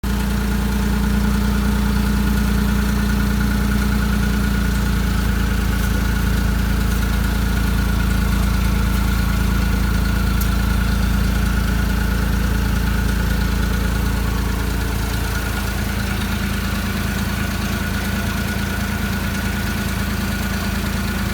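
Car engine idling steadily, dropping slightly in level about fifteen seconds in.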